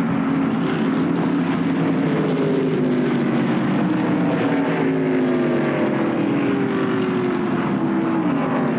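A group of NASCAR Winston Cup stock cars' V8 engines running past together. Several overlapping engine notes fall slowly in pitch as the cars go by.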